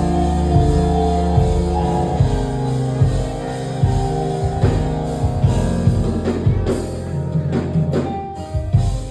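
Live praise band playing: drum kit keeping a steady beat with electric guitar and sustained keyboard or bass chords, the drums dropping out near the end.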